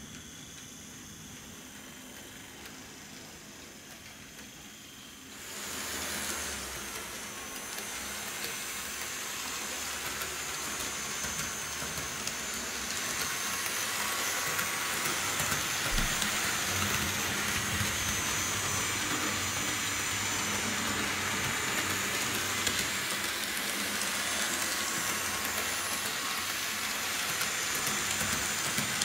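Bachmann HO-scale Strike Force model train running on its track: a steady hum of the locomotive's electric motor and the rolling of the wheels, with a thin high whine, quiet at first and getting much louder from about five seconds in as the train passes close by.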